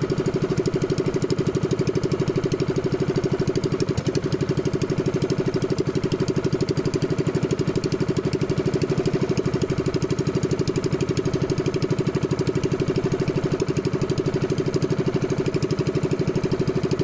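Engine of a small fishing boat running steadily under way, a fast, even chugging.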